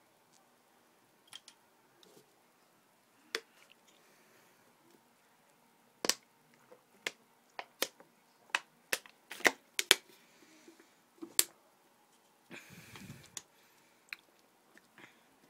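A string of sharp, separate clicks and knocks, about a dozen over several seconds, then a short rustling burst near the end: handling noise from a hand-held phone camera being moved about.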